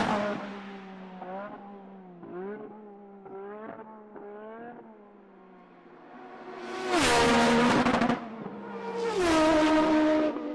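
NASCAR stock cars with V8 engines racing past at close range. Quieter engines rise and fall in pitch through the middle, then two loud pass-bys come about seven and nine seconds in, each engine note dropping in pitch as the car goes by; the first cuts off suddenly.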